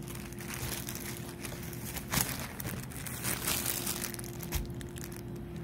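Irregular soft rustling and crinkling handling noises, the strongest about two seconds in, over a faint steady hum.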